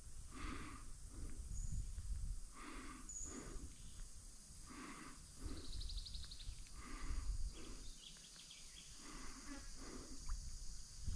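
A person breathing audibly, a soft puff about every two seconds, over a low rumble of wind on the microphone. A short, rapid high trill sounds about halfway through, and there are a couple of faint high chirps early on.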